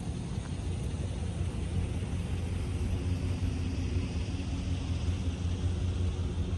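Low, steady rumble of distant street traffic, with a faint hiss that swells a little in the middle.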